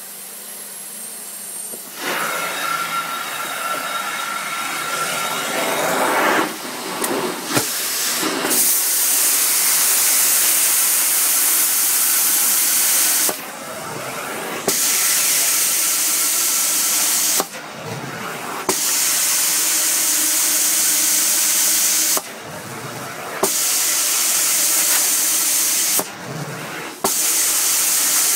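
Truck-mounted hot-water extraction carpet-cleaning wand working a carpet: vacuum suction rushing through the wand, with a loud spray hiss in long stretches that cuts out for about a second four times between strokes.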